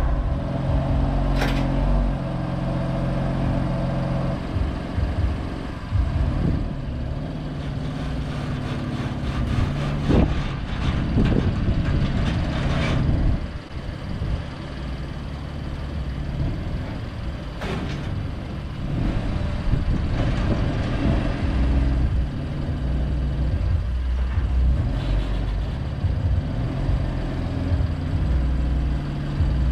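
BMW M3's twin-turbo inline-six running at low revs, rising and falling as the car creeps slowly up the steel ramps of a car-hauler trailer, with a few sharp clicks along the way.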